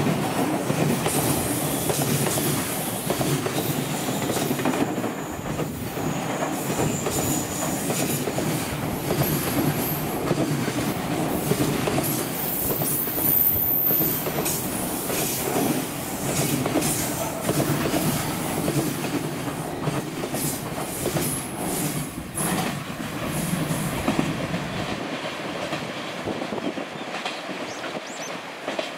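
Container flatcars of a freight train rolling past close by, wheels clattering over the rail joints, with a few brief high-pitched wheel squeals. The sound fades over the last few seconds as the end of the train passes and draws away.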